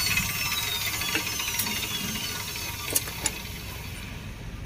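A few sharp metal clicks, the strongest two close together about three seconds in, as a T-handle spanner is worked on a stuck nut on a motorcycle frame. Behind them an engine runs steadily, its whine slowly falling in pitch and fading.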